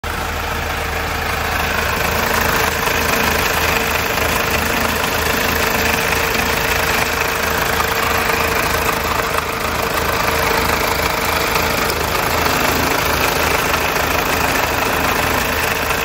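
Mazda 2.2 Skyactiv-D diesel engine idling with a rattling noise from the bottom of the engine. The mechanics trace it to a chain under the sump that is probably stretched, with its tensioner fully out.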